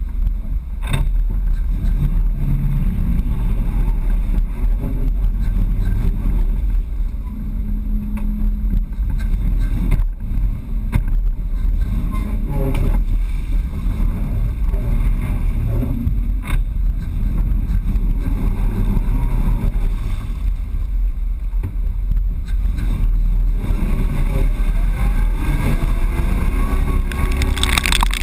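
Ford Bronco's engine running under load as it drives through deep mud and water, a steady heavy rumble with a few sharp knocks from the truck along the way. Near the end the noise grows brighter and fuller as it drives into a mud hill.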